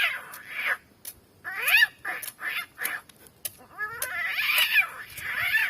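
A person imitating a cat with the mouth: a run of wailing, meow-like cries that bend up and down in pitch, with short gaps between them and a longer cry about four seconds in.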